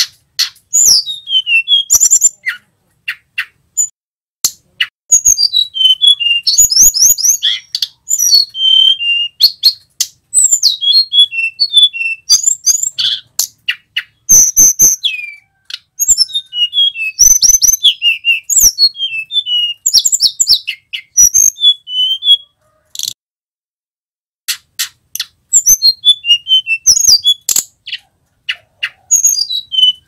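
Male hill blue flycatcher (tledekan gunung) singing: bursts of rapid, high whistled notes and trills, sweeping up and down, with sharp clicks between them. Short pauses separate the bursts, and there is a longer pause about two-thirds of the way through.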